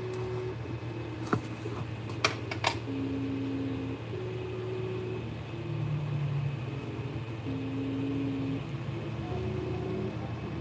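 Creality 3D printer running: its stepper motors sing in short steady tones that change pitch with each move of the print head as it lays down a first layer, over the constant hum of the cooling fans. A few sharp clicks come between about one and three seconds in.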